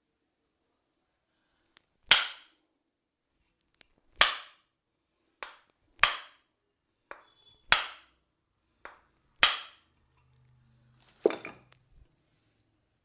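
A massage hammer striking sharply, five loud cracking blows about two seconds apart with fainter taps in between, each with a short bright ring. A duller knock and rustle follow near the end.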